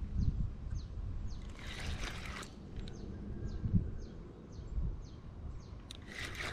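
Outdoor ambience with uneven low rumble from wind buffeting the microphone. Over it, a bird repeats short, high, falling chirps about two to three times a second, and there are two brief bursts of hiss.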